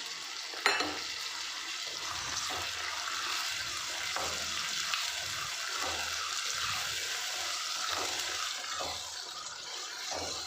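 Chopped tomatoes tipped into onions frying in hot oil in a clay pot: a sharp knock less than a second in, then steady sizzling with the scrape of a spoon stirring.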